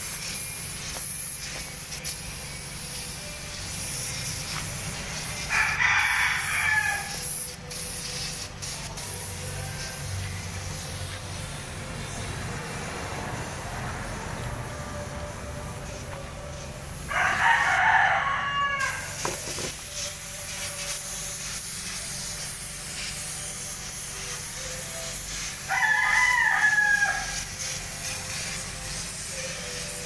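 A rooster crows three times, each crow lasting a second or two, over the steady hiss of a spray gun's compressed air.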